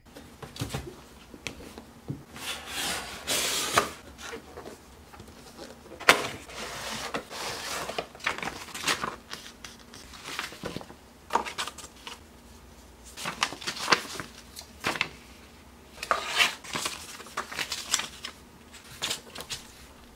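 Unpacking by hand: irregular rustling and scraping of a cardboard box and a paper instruction sheet, with sharp clicks and knocks of clear plastic packaging, the loudest a sharp click about six seconds in.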